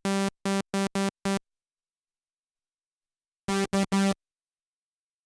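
Roland SH-201 synthesizer playing short, buzzy notes all on the same pitch in a stuttering rhythm: about five clipped notes in the first second and a half, then a pause, then three more about three and a half seconds in. Each note starts and stops abruptly.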